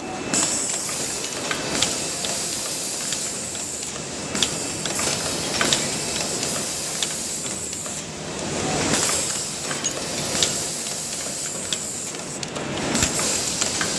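Pneumatic pick-and-place arm of a cutting-wheel sorting machine at work: a steady hiss of compressed air that breaks off briefly every few seconds, with frequent sharp clicks and knocks as the machine handles the discs.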